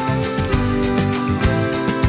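Upbeat background music with a steady beat and plucked guitar.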